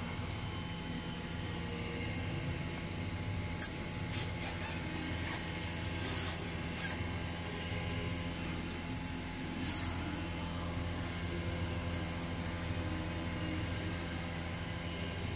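Air-conditioning compressor running with a steady hum, drawing more than its rated current with low suction pressure, which the technician takes for a faulty compressor. Several sharp clicks and scrapes of a hex key and clamp meter handled at the service valve come between about four and ten seconds in.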